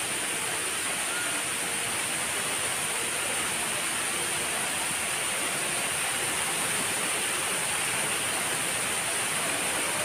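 Waterfall spilling in many thin streams down a stepped rock face: a steady rushing hiss of falling water.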